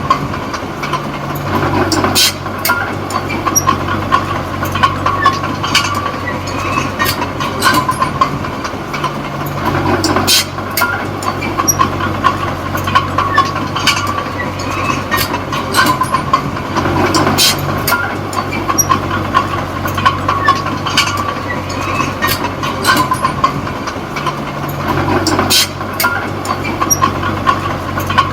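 Komatsu D20P crawler bulldozer's diesel engine running under work, its engine note changing about every seven or eight seconds. Over it, the steel tracks clank and squeal continuously.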